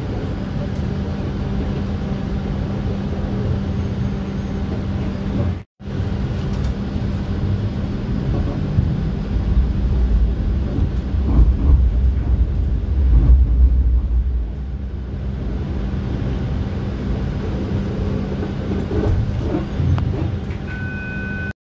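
TTC streetcar heard from on board: a steady electrical hum over the rumble of the wheels on the rails. The rumble grows heavier for several seconds around the middle, then eases as the car reaches its stop. The sound cuts out for a split second about six seconds in, and near the end two short electronic tones sound.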